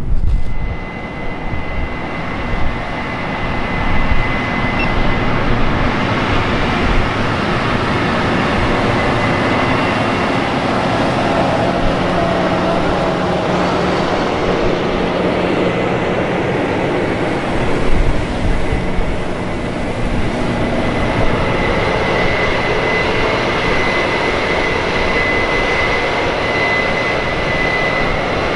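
Heavy harvest machinery running steadily, with a constant high-pitched whine over a dense mechanical rumble.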